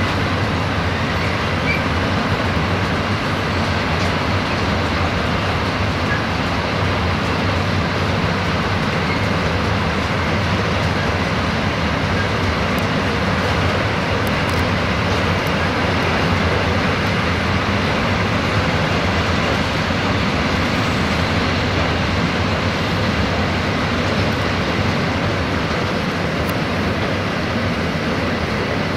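Freight train of double-deck car-carrier wagons rolling past, a steady, even rumble and rush of steel wheels on the rails.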